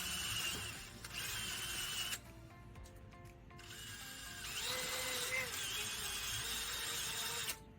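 Handheld heat gun blowing in three runs, a steady hiss with a wavering high whine from its fan motor, switching off briefly twice and cutting off near the end; it is shrinking heat-shrink tubing over a battery cable end.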